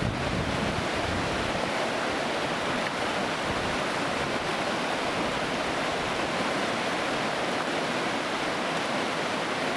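Whitewater rapids rushing steadily, a constant even roar of churning river water.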